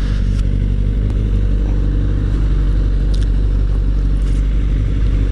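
Motorcycle engines idling steadily with an even low hum: a 2014 Kawasaki Ninja 300 and a Suzuki Hayabusa alongside it.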